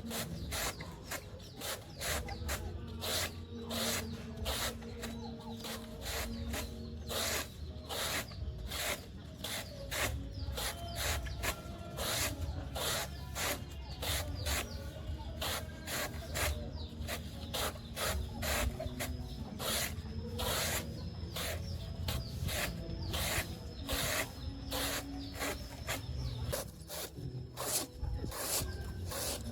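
Banana stem being chopped with a blade in quick, repeated strikes, about two or three a second.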